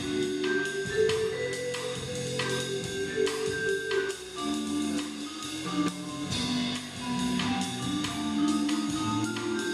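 A jazz sextet playing: trumpet, trombone and flute hold a melody line in long notes over vibraphone, upright bass and drum kit.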